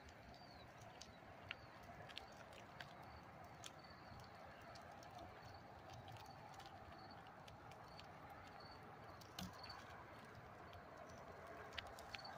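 Near silence: faint outdoor ambience with scattered sharp clicks and short, faint high chirps.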